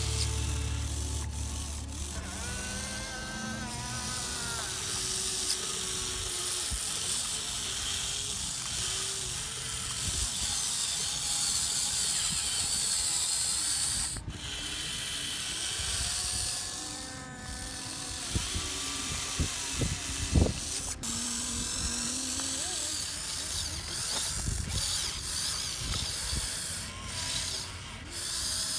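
Huina 1580 RC excavator's electric motors whining as it digs and moves dirt, the pitch gliding up and down as each function starts and stops, with a few sharp clicks.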